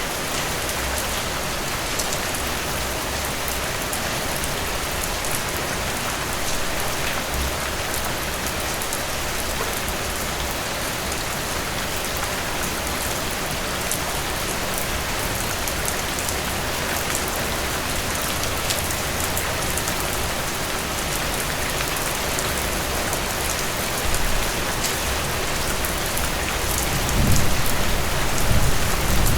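Steady heavy rain falling, an even hiss with scattered sharp drop ticks. A low rumble swells up briefly near the end.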